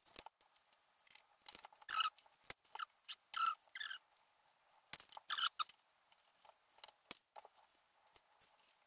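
A hand tool cutting through a model railway rail to make an insulated block section: a scatter of small clicks and short, faint metal squeaks at uneven intervals.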